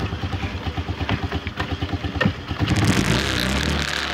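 Four-wheeler (ATV) engine idling with an even low chugging, then throttled up about three seconds in, running louder and steadier as the machine pulls away.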